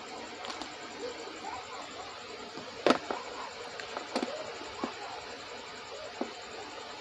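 Light clicks and taps of plastic connectors and wires being handled, the sharpest about three seconds in, over a steady background hiss.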